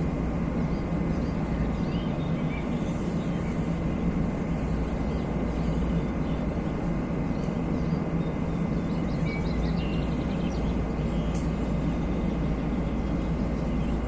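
Steady rushing noise of a fast-flowing river with a low rumble underneath, and a few faint bird chirps now and then.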